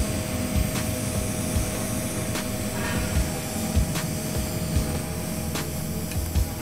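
TIG welding arc burning steadily at about 180 amps while filler rod is fed in: an even hiss with a constant hum tone and scattered small clicks.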